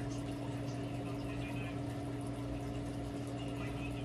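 Steady low hum with a faint trickle of water underneath.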